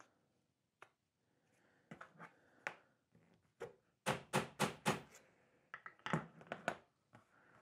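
Sharp taps and clicks of a ratchet handle's end seating cork wads down inside shotgun shell wads held in a wooden loading block. A few scattered light clicks come first, then a quick run of about five taps around four seconds in and a few more shortly after.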